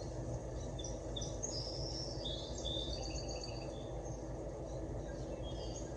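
Birds chirping: a run of short high calls and trills in the first half and a few more near the end, over a steady low hum.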